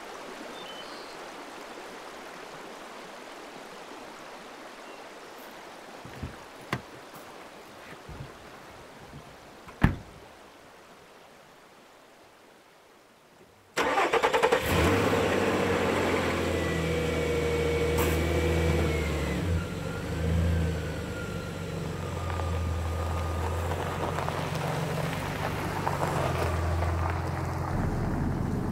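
A Nissan pickup truck's engine comes in suddenly about halfway through and keeps running, its pitch stepping up and down as the truck drives. Before that there is only a faint hiss with a few sharp clicks.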